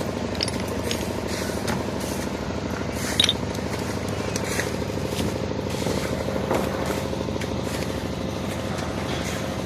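An engine running steadily with a fast, even throb, with scattered sharp knocks and clacks over it; the loudest knock comes about three seconds in.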